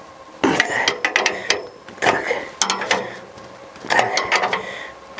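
Nuts being tightened with a wrench on a steel wheelbarrow's frame bolts: rapid metallic clicking in three short runs, starting about half a second in, two seconds in and four seconds in.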